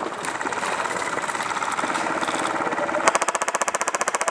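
Airsoft electric gun firing full-auto at close range: an even, very rapid clatter of shots that starts about three seconds in. Before it, a denser, irregular rattle of other airsoft guns firing.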